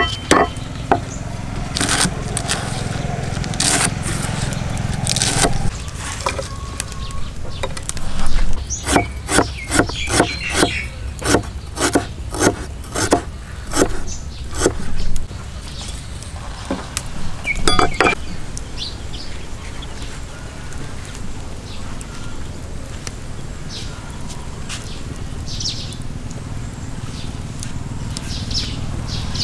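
Cleaver chopping lemongrass and garlic on a thick wooden chopping block: a long series of sharp knocks, coming in quick uneven runs, that stops about eighteen seconds in. After that a few faint bird chirps sound over a low steady background.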